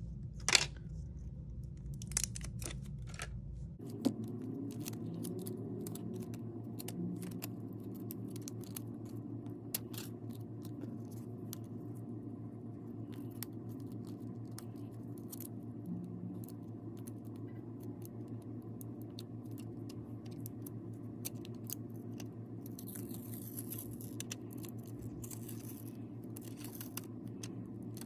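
Small clicks, crinkles and scratches of adhesive pull-tab strips and their plastic backing film being handled and peeled for a replacement phone battery, over a steady low hum. There is a sharp click about half a second in, and a longer rustle near the end.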